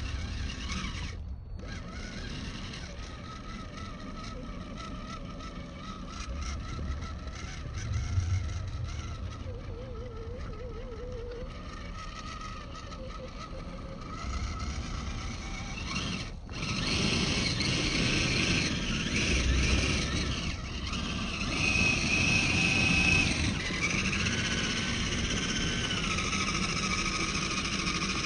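Radio-controlled Mercedes 6x6 scale crawler's electric motor and gears whining, rising and falling in pitch, with tyres grinding over dirt and stones. The sound cuts out briefly twice and is louder in the second half.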